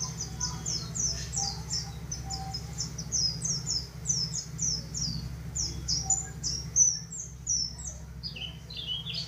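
White-eye (pleci dakun, the yellow-breasted form) in full song: a rapid, unbroken string of short, high, downward-slurred notes, which drop lower in pitch near the end.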